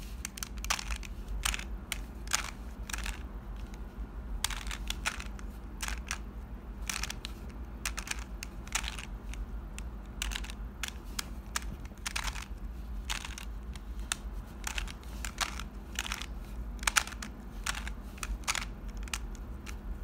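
A plastic 3x3 Rubik's cube being turned by hand, its layers clicking and clacking in quick, irregular snaps. The same corner-insertion sequence is being repeated over and over until the corner piece drops into place.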